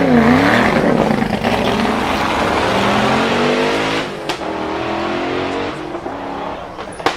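Performance car engine revving hard and accelerating, its pitch climbing over a couple of seconds. A single sharp exhaust bang comes about four seconds in, and a rapid string of exhaust pops starts at the very end.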